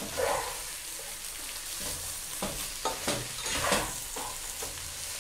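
Vegetables sizzling steadily in hot oil in a metal pot as they are stirred with a slotted spatula. A few short scrapes and knocks of the spatula come around the middle.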